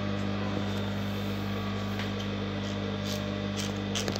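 Steady electric hum of the flatlock sewing machine's motor running without stitching, with a few soft clicks in the second half.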